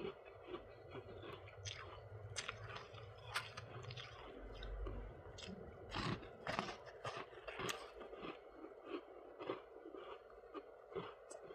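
A person chewing a mouthful of freezer frost, with many crisp, irregular crunches a few times a second.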